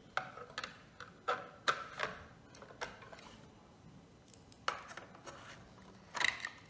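Hard plastic toy pieces of a Peppa Pig fire engine and fire-station playset clicking and knocking as they are lifted, fitted and pressed together on a stone countertop. A quick run of sharp clicks comes in the first two seconds, one more about five seconds in, and a couple near the end.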